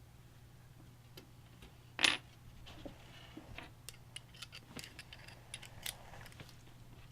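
Small metal hardware clinking while a computer is assembled: one sharp metallic clink about two seconds in, then a scattered run of light clicks and taps.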